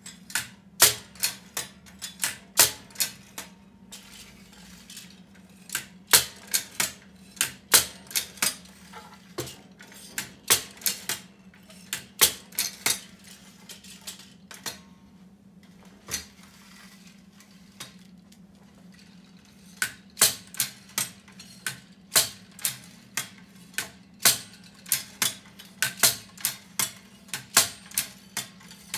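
Sharp metallic clicking and clacking from the hand-worked slide-changing mechanism of a Richard frères Taxiphote stereo viewer: brass ratchet wheel, levers and glass slides. The clicks come in runs of about three a second, with two pauses.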